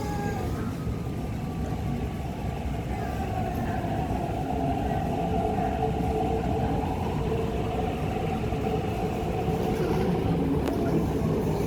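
MTR East Rail Line R-Train electric multiple unit pulling out of the station: its traction motors whine steadily over the rumble of the wheels on the rails.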